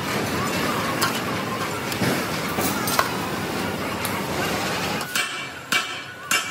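Steady factory machinery noise with a few sharp knocks, one of them ringing briefly. About five seconds in the din drops away, leaving three sharp knocks.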